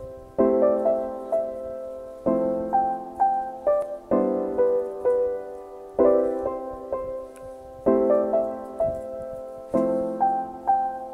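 Background music: a solo piano playing a slow, gentle piece, with a chord struck about every two seconds and single melody notes ringing out between them.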